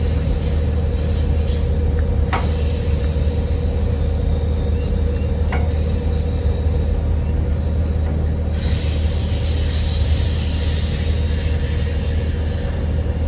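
A steady, loud low mechanical hum with a constant tone above it, joined by a steady hiss about eight and a half seconds in; two light knocks about two and five and a half seconds in.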